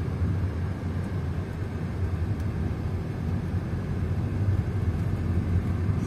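Steady low rumble of a moving car's engine and tyres on the road, heard from inside the cabin while driving.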